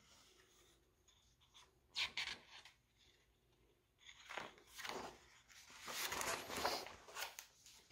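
Pages of a hardcover picture book being turned and handled: a brief paper rustle about two seconds in, then more soft rustling and shuffling from about four seconds until just before the end.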